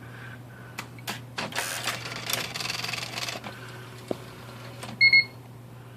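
IBM Wheelwriter 10 electronic typewriter powering up: a few clicks, then about two seconds of mechanical rattling and whirring as the carrier and printwheel run their reset, and a quick double beep near the end.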